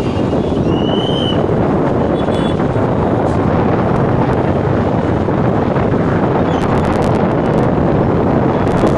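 Floodwater rushing through the gates of a river barrage: a loud, steady roar.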